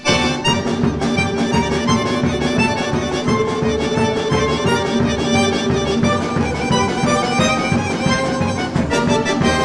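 Folk-instrument orchestra playing a piece, a bayan (chromatic button accordion) featured over a steady rhythmic accompaniment, with bowed strings in the mix. The music starts up right after a brief break.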